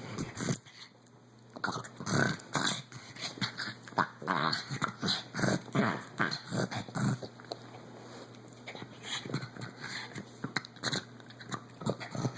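14-year-old pug play-growling: a long run of short, irregular growly noises, several a second, after a brief lull at the start, thinning out in the second half.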